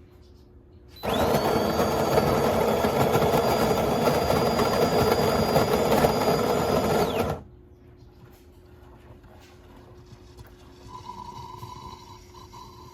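De'Longhi Magnifica Start espresso machine running: a loud mechanical buzz starts suddenly about a second in and cuts off after about six seconds.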